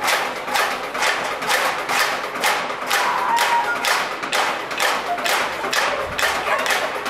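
Steady percussive beat of sharp, evenly spaced hits, about three a second, keeping time for a dance routine.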